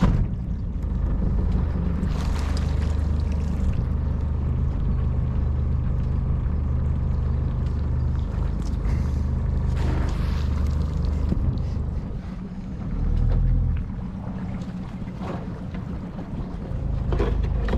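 Small boat's outboard motor running steadily at a low drone, easing off and picking up again about two-thirds of the way through.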